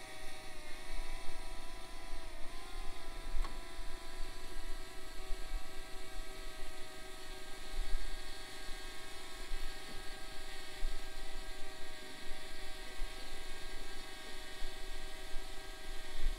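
DJI Mavic Mini quadcopter drone hovering, its propellers giving a steady high whine of several tones at once. The pitch dips for a moment about two and a half seconds in.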